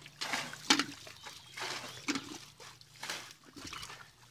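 Shallow muddy water splashing and sloshing in several short, irregular bursts, the loudest about a second in.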